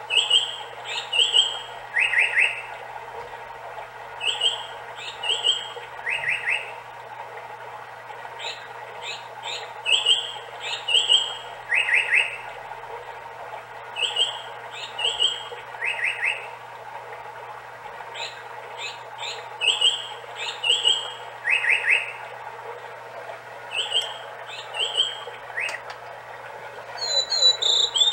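Seiko FS510B wall clock's hourly chime playing a recorded Japanese paradise flycatcher song, repeated phrases of high whistled notes ending in quick trills, over a steady recorded babbling-stream sound. Near the end a recorded blue-and-white flycatcher song begins.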